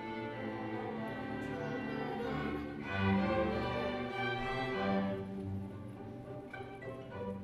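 Student string orchestra of 7th and 8th graders playing sustained chords, with violins over low cello and bass notes. It grows louder about three seconds in and softer near the end.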